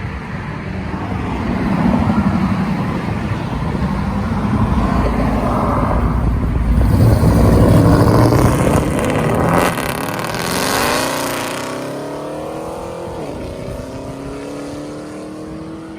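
Loud straight-piped muscle-car V8 exhaust as the car accelerates hard, building to a peak, then its pitch falls and the sound fades as it pulls away.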